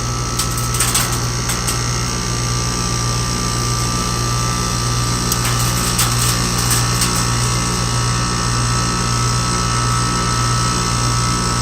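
Air-conditioning compressor running with a steady hum, its contactor pushed in by hand to pump the system down: the suction side is being pulled down as refrigerant is pumped into the condenser.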